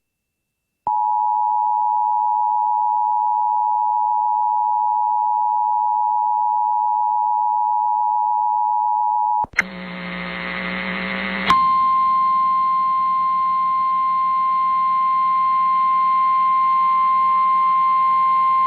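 Emergency Alert System two-tone attention signal, a steady alarm that starts about a second in, holds for about eight and a half seconds and cuts off. A couple of seconds of radio static and hum follow, then a single-pitch NOAA Weather Radio warning alarm tone sounds steadily over the static.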